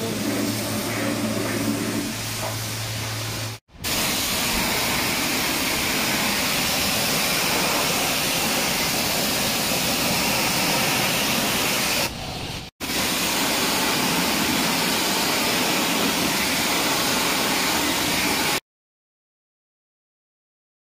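Pressure washer spraying water onto a car wheel: a steady, loud hiss, broken by two brief cuts and stopping abruptly near the end. In the first few seconds a steady low hum runs under it.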